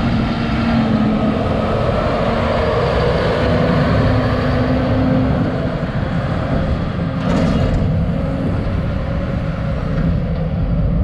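Heavy harvest machinery, a combine harvester or tractor, with its engine running steadily under load. A brief hiss cuts through about seven seconds in.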